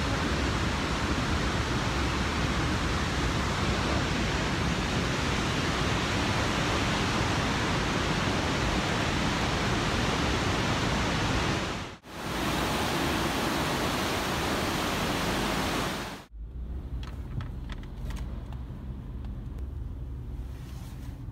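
Steady rushing of a river through a rocky gorge. About 16 seconds in it cuts to quieter road traffic.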